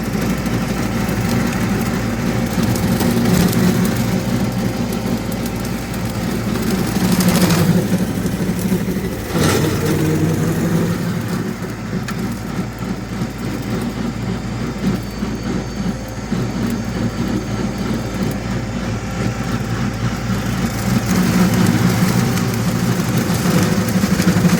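Farm tractor engine running steadily while the tractor works backwards through soft wetland ground, its level rising and falling, with a couple of sharp knocks about seven and nine seconds in.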